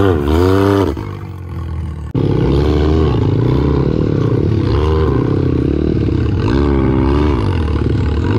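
Can-Am Maverick X3 turbo side-by-side engine revving up and down as it climbs over a log. About two seconds in, a small pit bike engine close by takes over, running and revving in several swells while following the side-by-side through the woods.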